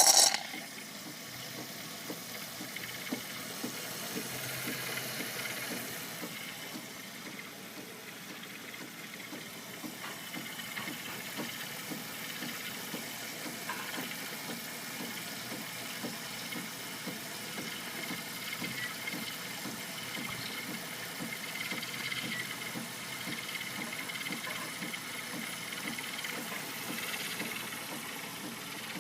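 Nespresso capsule coffee machine brewing: its pump buzzes steadily with a fast pulsing hum while coffee runs into the cup. There is a short loud burst at the very start.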